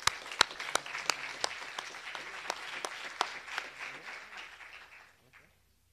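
Audience applauding, with single sharp claps from one clapper standing out about three times a second; the applause dies away about five seconds in.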